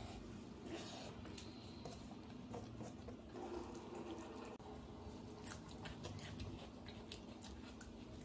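Close-miked eating of rice and curry: chewing with many small wet clicks and mouth smacks.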